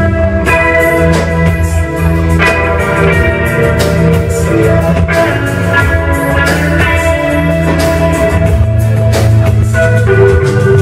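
Live band playing an instrumental passage: drum kit, electric guitar, bass guitar and electric keyboard with held notes over a steady beat.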